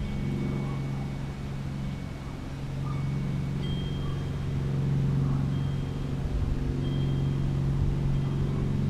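Steady low mechanical hum of a running engine or motor, swelling slightly toward the middle, with faint short high whistling tones now and then.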